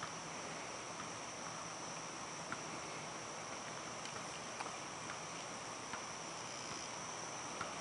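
A steady, high-pitched chorus of insects such as crickets singing in the grass, with a few faint ticks.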